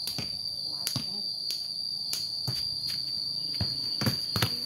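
Insects chirring in one steady high-pitched tone, with regular clicks about twice a second and a couple of louder thumps about four seconds in as a ball is kicked on concrete.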